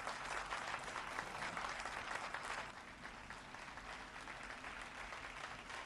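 An audience applauding faintly, the clapping easing off about halfway through.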